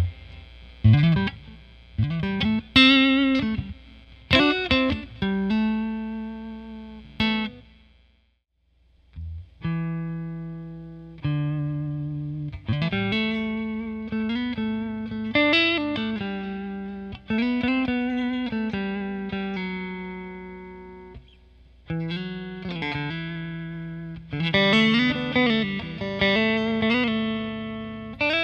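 Electric guitar played through a combo amp, picked on single notes and chords that ring out and fade, with several string bends. There is a short silent pause about eight seconds in. The amp is picked up by a Donner DC20 large-diaphragm condenser microphone placed in front of its speaker.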